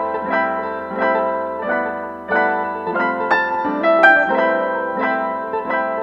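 Background instrumental music: a melody of quick, evenly paced notes.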